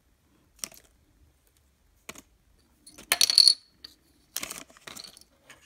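Tiny metal screws and small parts from a model locomotive clicking and rattling as they are handled on the workbench: single clicks about half a second and two seconds in, a louder rattle about three seconds in, then a run of clicks and scrapes near the end.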